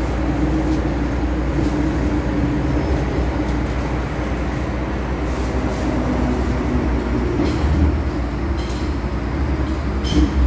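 Inside an MTR M-Train carriage running underground: a steady low rumble of wheels and running gear with a hum through it, and a few sharp knocks and rattles in the second half, the loudest about ten seconds in.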